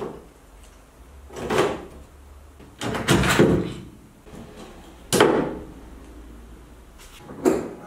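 Four short scraping noises, each swelling and fading over about half a second, as plastic lamp housings are worked loose and handled on a Fiat 126p.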